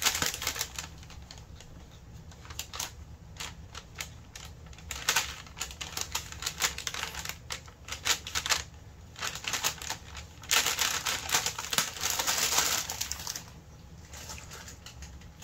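Irregular small clicks and taps from handling makeup packaging, with a few seconds of paper crinkling about ten seconds in.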